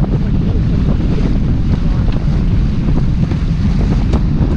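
Wind buffeting the microphone aboard a sailboat under way, a loud steady low rumble, with a few faint clicks.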